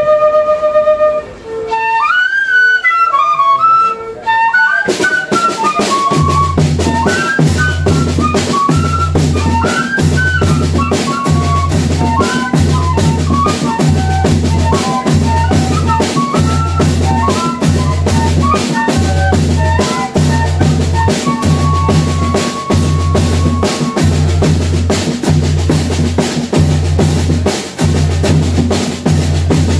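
Banda de pífano playing live: a few held fife notes, then a fife melody, joined about five seconds in by zabumba bass drum and snare drum keeping a steady beat.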